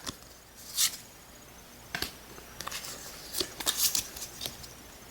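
Pokémon trading cards being handled: a few brief, soft swishes of cards sliding against one another.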